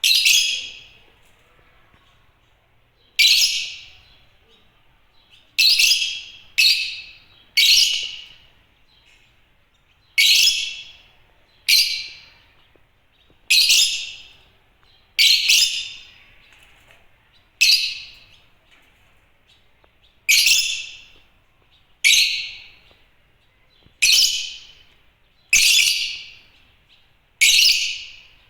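Lovebirds (Agapornis) chirping: about sixteen sharp, high-pitched calls, each starting abruptly and dying away quickly, at irregular gaps of one to three seconds.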